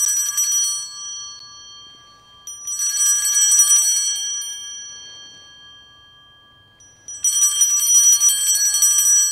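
Sanctus bells (a cluster of small altar bells) shaken three times, a few seconds apart, each peal dying away in a bright shimmer. They mark the elevation of the chalice just after the words of consecration over the wine.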